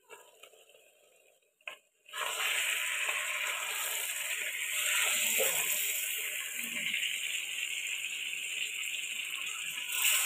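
Marinated chicken sizzling as it fries in oil in a clay handi, a steady hiss that starts abruptly about two seconds in and holds, with a wooden spatula stirring through it. This is the covered-and-uncovered bhuna stage, with the chicken about half fried.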